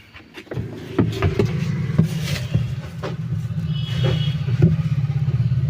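A motor starts about half a second in and runs with a steady low hum, with scattered knocks and clicks over it.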